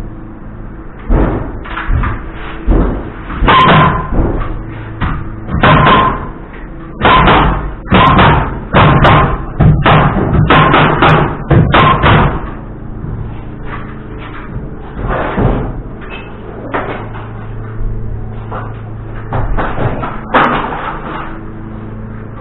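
Hammer blows driving nails into wood framing: groups of sharp, quick strikes, thickest in the first half, some ringing briefly, over a steady low hum.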